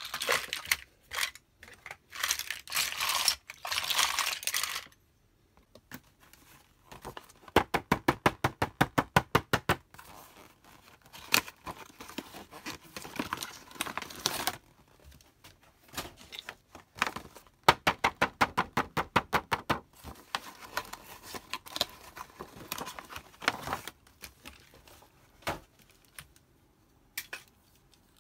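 Cardboard-and-plastic doll boxes being handled: crinkling of the packaging for the first few seconds, then three runs of quick, even tapping on the boxes, about eight taps a second, with scattered clicks between.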